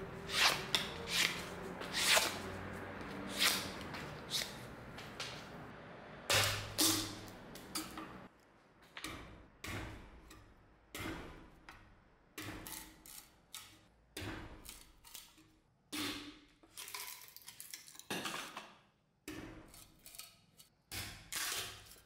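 A restored saw-back survival knife chopping into a block of wood clamped in a vise. Each blow is a sharp chop, a few at first and then a steady run of about one a second.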